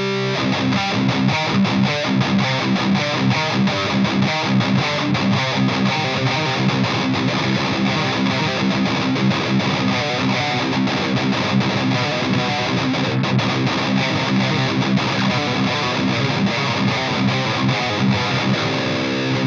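Distorted electric guitar played through an EVH 5150 III LBX tube amp head, continuous high-gain riffing in drop C tuning with the mids turned up to about 3 o'clock.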